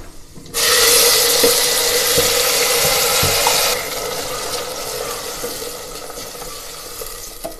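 Ground tomato, onion and green-chilli paste hitting hot oil in a pressure cooker: a sudden loud sizzling hiss about half a second in, which drops back after about three seconds and keeps fading as it is stirred with a wooden spatula.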